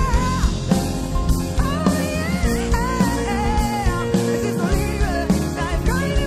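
Live band music: a woman's voice singing a gliding melody line over acoustic guitar, electric bass and a drum kit with cymbals.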